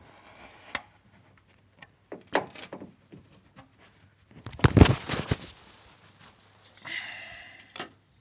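Metal clanks and knocks as a new strut-rod bracket is worked onto a car's front suspension strut rod by hand, with a loud rattling cluster of knocks about halfway through and a short metallic scrape near the end.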